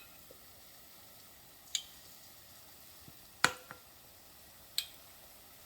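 A kitchen utensil clinking against cookware four times, each a sharp click with a short ring, the loudest about three and a half seconds in, as battered chicken pieces are worked out of the batter into the fryer basket. A faint steady hiss runs underneath.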